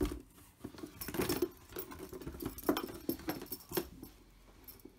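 Leather saddlebag and bottle holder being handled: scattered rustling and creaking with a few sharp clicks and knocks, about three of them between two and four seconds in.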